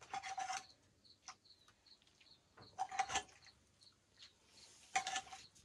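Metal ladle scraping and knocking against a cooking pan a few times, each knock ringing briefly. A small bird chirps steadily in the background, about three short chirps a second.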